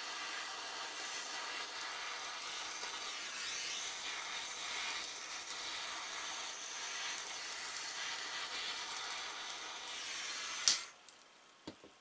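Weller butane pocket torch hissing steadily as its flame shrinks and melts a heat-shrink Duraseal crimp splice. The hiss stops abruptly with a sharp click near the end.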